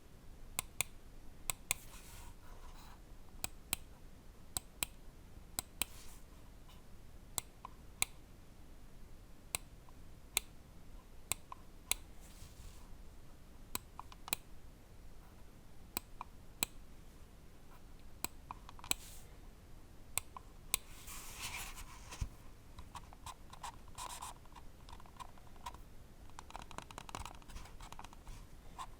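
Ajazz AJ159 Apex gaming mouse switches clicking, single crisp clicks about once a second. In the last third, runs of faster, rattling ticks come in short bursts.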